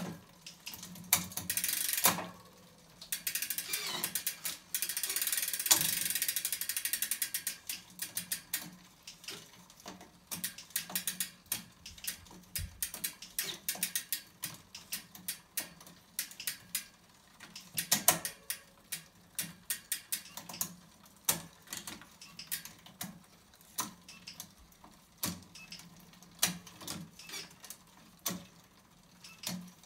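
Road bike drivetrain turned by hand in a workstand: the chain runs over a 10-42 SRAM XD cassette and Di2-shifted chainrings, with a louder stretch of continuous chain noise a few seconds in. The rear hub's freehub ratchet clicks in quick runs as the wheel coasts.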